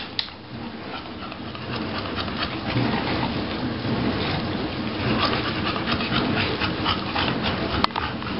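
Dogs panting while working a Nina Ottosson Dog Brick treat puzzle, with scattered light clicks and knocks as its pieces are pushed and pulled; one sharper click near the end.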